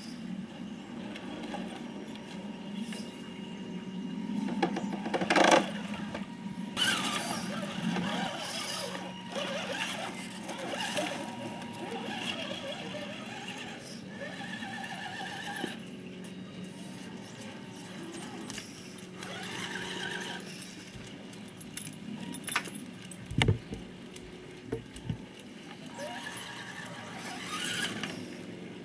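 Axial SCX10 Honcho RC crawler's electric motor and drivetrain whining in bursts as it drives over stone paving, with rattling and a few sharp knocks around three-quarters of the way through.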